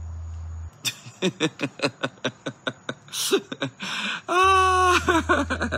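A man laughing: a quick run of short breathy laugh pulses, about five a second, then a single drawn-out, high-pitched laugh note about four seconds in. A steady electrical hum stops briefly during the laugh pulses and comes back with the long note.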